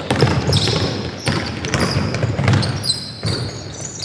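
A basketball bouncing on a gym floor during play, a sharp bounce about once a second, with short high squeaks typical of sneakers on the court.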